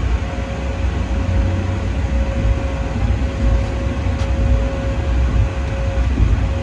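Schoma maintenance locomotive rolling slowly along depot track, heard from the cab: a steady low rumble with a constant whine above it.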